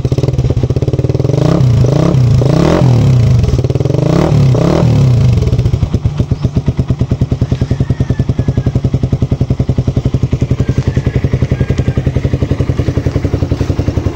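Suzuki Raider R150's single-cylinder engine through an Akrapovic 51mm standard-type exhaust with its silencer fitted. It is revved in several quick blips over the first five seconds or so, then settles to a steady idle with an even pulse.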